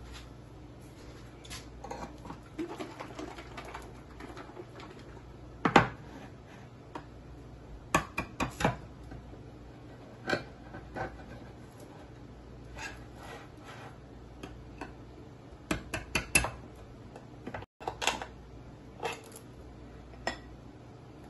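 Metal utensils clinking and scraping against a ceramic bowl in irregular knocks, the loudest about six seconds in, with quicker clusters of clicks around eight and sixteen seconds in.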